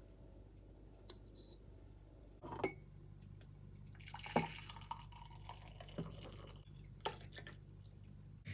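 Faint kitchen sounds: a couple of light knocks of crockery, then coffee poured from a French press into a mug, and near the end oat milk poured in from a carton.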